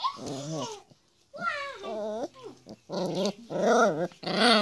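A puppy growling and whining at being held, in several drawn-out cries that waver in pitch, with short pauses between them.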